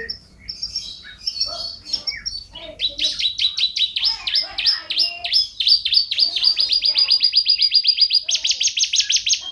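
Domestic canary singing in full song. It opens with scattered chirps and short notes, then from about three seconds in it runs into long rapid trills of evenly repeated notes, switching to a faster, higher trill near the end.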